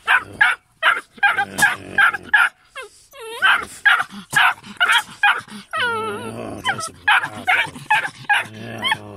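Wirehaired Vizsla puppy barking in rapid high yaps, about four a second, with a few drawn-out whines that slide down in pitch between them, worked up at a marten held in a cage trap.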